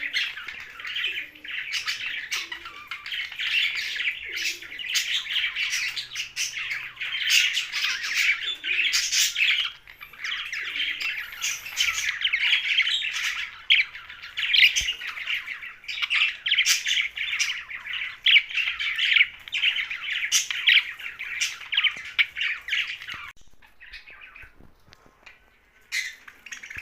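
Young budgerigar chattering and squawking in a dense, rapid stream of chirps. The chatter stops abruptly near the end, leaving only a few scattered calls.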